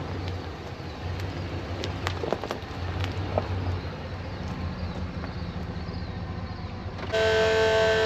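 A vehicle engine running with a steady low hum and a few light clicks; about seven seconds in, music with held notes comes in over it.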